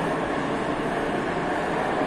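St. Petersburg metro train pulling out of the platform, a steady rumble of wheels and motors.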